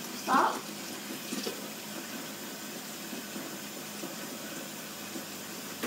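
Water running in a steady hiss, filling a cup of instant ramen, with a sharp click at the very end.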